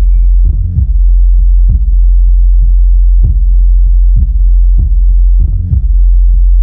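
JBL PartyBox 110 speaker playing a bass test track: a continuous, very loud deep bass tone with drum hits about every half second to a second.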